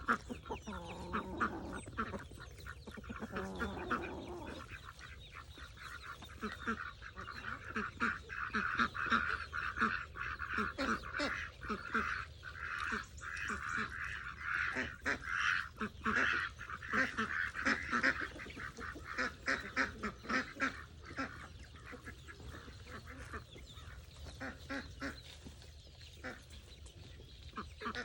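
Farm birds feeding, with a dense stream of short, rapid calls and chatter that is busiest in the middle stretch. There are a few lower calls in the first few seconds.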